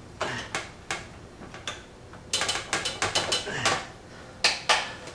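Sharp metallic clicks and clatters of hand tools and screws against the oven's sheet-metal control panel while its mounting-bracket screws are worked in. They come scattered at first, then in a quick run in the middle, then two loud strikes near the end.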